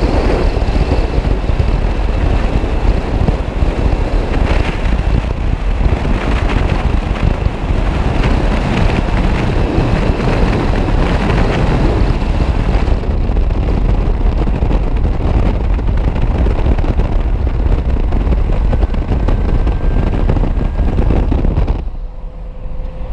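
Wind rushing over a vehicle-mounted action camera, mixed with the engine rumble and tyre noise of an off-road vehicle driving fast across sand. The noise dips briefly near the end.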